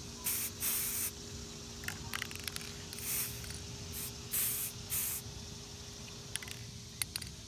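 Aerosol spray-paint can sprayed in about six short hissing bursts, the last about five seconds in, with a few faint clicks between them, laying an ombre coat on a tumbler.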